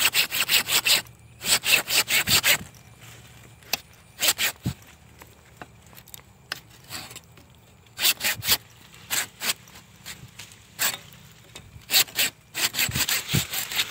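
Hand pruning saw cutting through a fig tree branch in runs of quick back-and-forth strokes. It pauses for several seconds after the first two runs, then starts again in shorter bursts.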